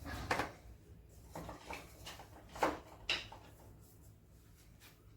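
A few short scrapes and knocks of a utensil in a non-stick frying pan as pizza dough is poured and spread in it, the loudest two about two and a half and three seconds in.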